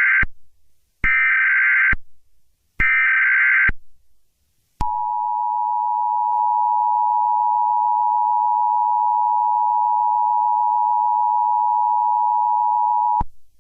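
Emergency Alert System SAME header: three short bursts of warbling digital data tones about a second apart, then the two-tone EAS attention signal, a steady dual tone held for about eight seconds before cutting off near the end.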